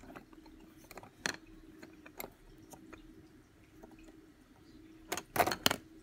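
Metal mechanical pencil being handled, its parts clicking and tapping: a few light clicks, then a quick run of three or four louder clicks near the end.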